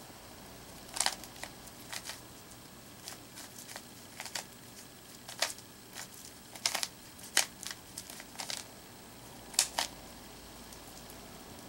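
Rubik's Cube being turned by hand: sharp, irregular plastic clicks and clacks as the layers are twisted, about one every half second to second.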